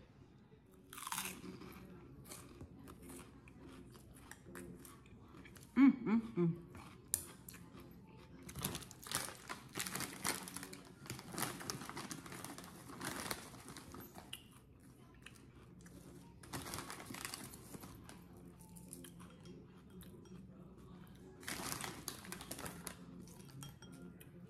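Plastic bag of Ritz crackers crinkling and rustling in irregular bursts as it is handled, with crunching.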